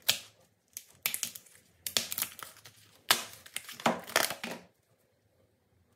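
Stiff card mould being peeled and bent off a cast knife-handle block, crackling and rustling in a series of short bursts that stop about five seconds in.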